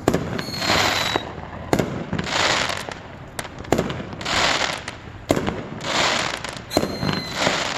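Consumer firework going off: repeated surges of hissing spray about every one and a half to two seconds, sharp crackling pops between them, and a brief high whistle twice.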